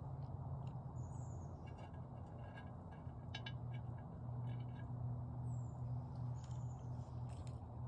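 Faint, scattered bird calls: short high chirps, two of them quick falling notes, and a few brief clicky calls, over a steady low rumble.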